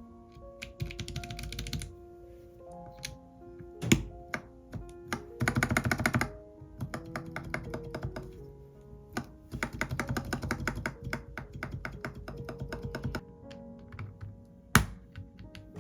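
Typing on a Mathew Tech MK80 mechanical keyboard with lubed Akko V3 Cream Blue tactile switches: bursts of fast keystrokes, with a few louder single key strikes in between. Background music plays underneath.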